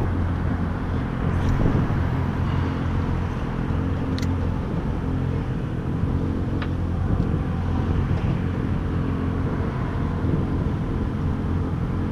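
Boat engine idling steadily with an even low hum, a few faint ticks over it.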